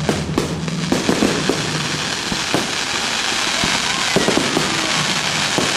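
Fireworks going off: a few sharp bangs in the first second, then a dense, continuous crackling hiss that builds and holds, with scattered pops.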